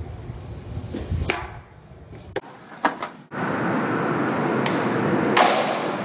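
Skateboard wheels rolling on concrete, with sharp clacks of the board popping and landing. A little past halfway, a louder steady rush of wheels rolling in a concrete skate bowl takes over, with one hard hit near the end.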